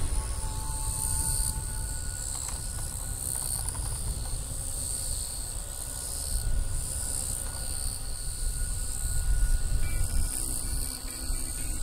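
Insects buzzing in a steady high chorus that swells and fades in slow pulses, over a low rumble, with a faint thin whine.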